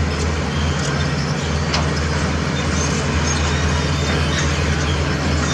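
Heavy diesel construction machinery running steadily under a constant low drone, with short high-pitched squeaks and clicks scattered over it.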